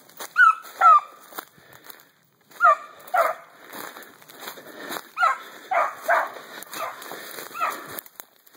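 Young deer-tracking puppy giving about nine short, high yipping barks, each dropping in pitch, some in quick pairs, while running the trail. Footsteps rustle through dry leaf litter between the barks.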